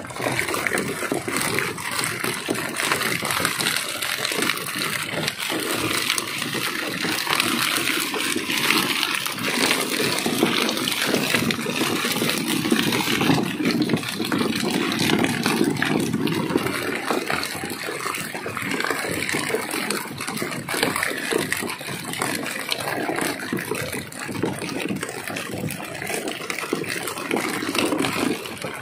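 Water splashing and churning without a break, a dense, even rush of splashes.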